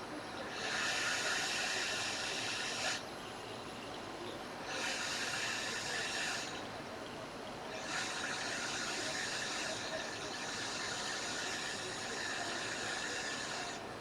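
Hot air rework station blowing in three spells of hiss with short breaks between, heating the solder to seat a small resistor on a phone's circuit board.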